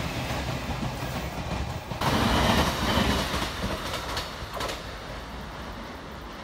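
Electric passenger trains running on the rails: a commuter electric multiple unit rumbling past, then a louder Taroko Express tilting train passing at speed. The Taroko train gives a couple of sharp wheel clacks around four seconds in, then fades as it pulls away.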